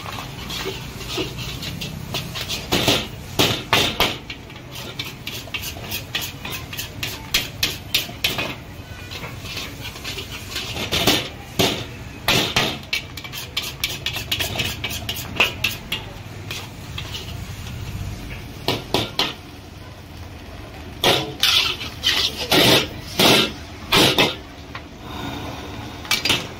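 Metal spatula striking and scraping a wok in quick irregular runs of clangs while fried rice is stir-fried, over a steady low rumble.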